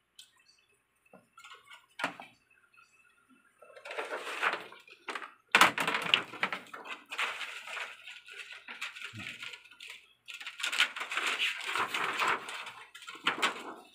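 Thin plastic reflector sheet of an LED TV backlight being handled and fitted over the back panel: a few light clicks at first, then rustling and crackling with sharp knocks from about four seconds in.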